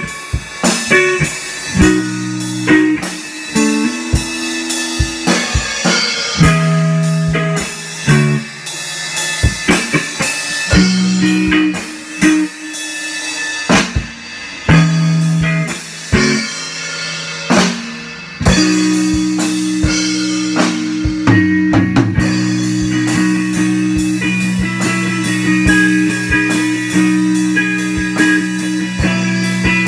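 A live guitar-and-drum-kit jam: the drums keep up a steady beat of hits while the guitar plays held low notes in stop-start phrases. About two-thirds of the way through, the guitar settles into a continuous sustained chord under the drumming.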